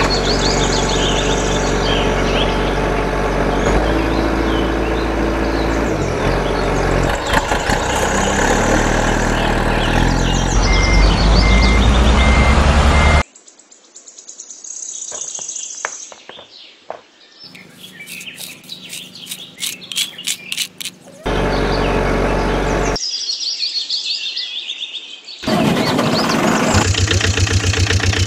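Birds chirping over a loud engine-like vehicle sound. The vehicle sound cuts off suddenly about halfway through, leaving a quieter stretch of chirps and small clicks. A loud, evenly pulsing engine-like sound returns near the end.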